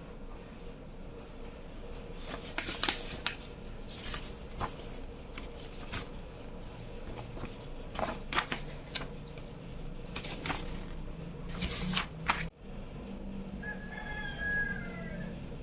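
Hands handling computer case parts and packaging: scattered clicks, taps and rustles over a steady low hum, with a faint brief squeak near the end.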